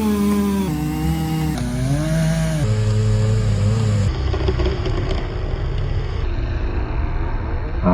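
A small engine's drone played back slowed down in steps: about every second its pitch drops lower and duller, until from about four seconds in it is a low rumble without a clear note.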